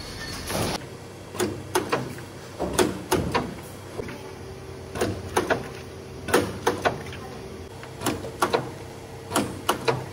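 Small bench press machine clacking as sandal insoles are fed under its pressing head, its strokes coming in quick runs of two or three about every second and a half, with a faint steady motor hum.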